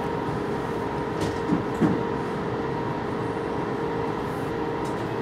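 Standing tram's cab hum: a steady electrical drone with two steady tones from the tram's onboard equipment while it waits at the platform, with a few light knocks between one and two seconds in.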